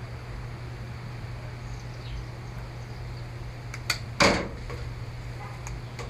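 A few small clicks and one louder knock from the opened tablet's parts being handled and pried, over a steady low hum.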